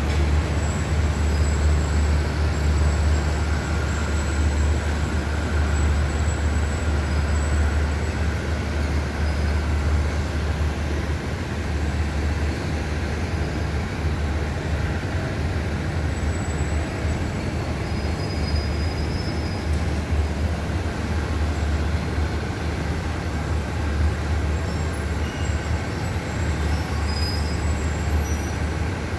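Diesel train standing at the platform with its engine idling: a steady low rumble that hardly changes.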